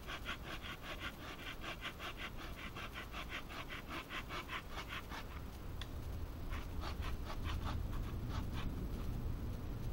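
A blade working a dry wooden stick: rapid, even rasping strokes, about six a second. They stop about five seconds in, and a shorter, sparser run follows a second or so later.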